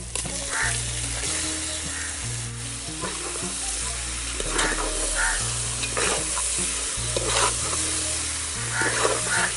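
Raw pork pieces sizzling in hot oil with fried onions in an aluminium pot, being stirred and turned over, with short wet scraping bursts from the stirring several times.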